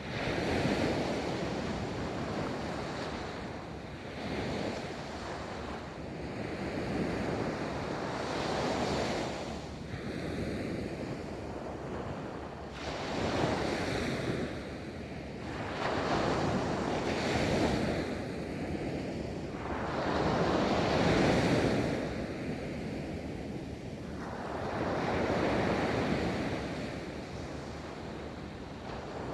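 Ocean waves breaking and washing up a beach, a steady wash of surf that swells with each breaker every two to four seconds, loudest about 21 seconds in. Wind rumbles on the microphone underneath.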